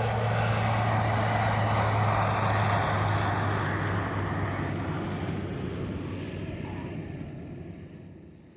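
Single-engine Cirrus SR22 Turbo's engine and propeller drone with a steady low hum, fading out over the last few seconds.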